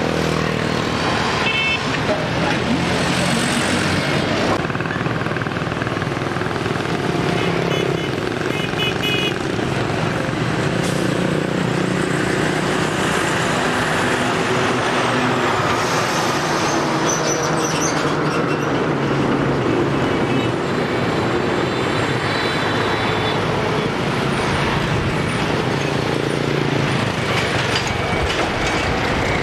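Busy road traffic: diesel container lorries running as they pass, with motorbikes and a few short horn toots.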